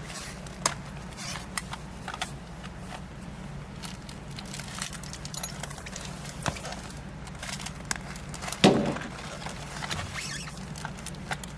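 Light handling noise of a clear plastic document pouch, scattered small clicks and rustles over a steady low hum, with one louder thump about nine seconds in.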